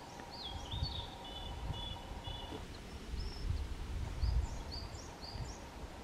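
Small woodland birds giving short, high chirps, one after another, in two runs, over a low, uneven rumble on the microphone.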